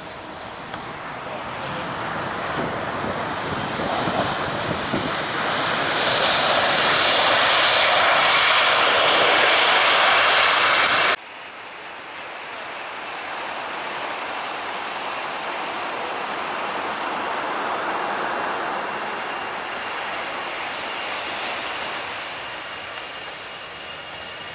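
Airliner-type aircraft engines passing overhead during a takeoff or landing: a rising rush of engine noise that is loudest a little before halfway, drops off suddenly, then carries on quieter and steady.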